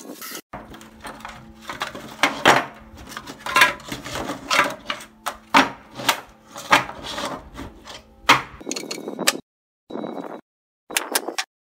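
Hollow wood-grain plastic slats knocking and clattering together as they are handled and stacked on a wooden table: a run of sharp knocks and taps, several a second. In the last few seconds the sound breaks into short bits separated by silence.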